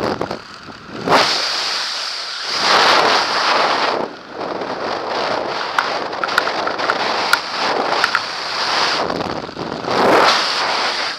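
Air rushing over the camera's microphone during parachute canopy flight, swelling and easing in gusts. A few small clicks come in the middle.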